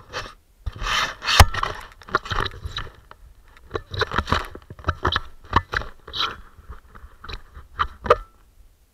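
Handling noise from a gloved hand gripping and shifting an action camera on a pole: irregular rubbing and knocking against the camera, with one sharp knock about a second and a half in.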